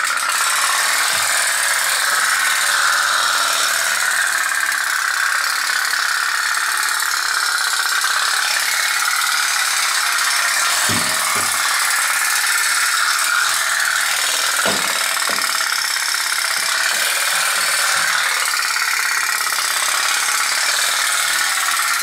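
A tin candle-powered pop-pop boat running: its boiler makes a steady popping rattle as it pulses water in and out of its exhaust tubes and drives the boat along. A few dull knocks come about halfway through.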